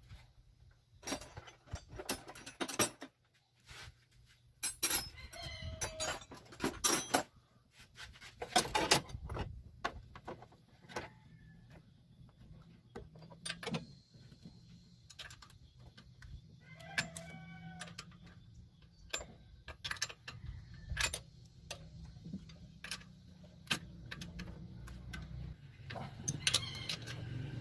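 Irregular clicks and clinks of hand tools on metal, sharp and separate, over a low steady hum.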